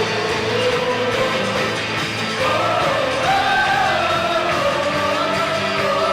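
Worship band music with voices singing long held notes that glide up and down. A new sung phrase comes in about two and a half seconds in.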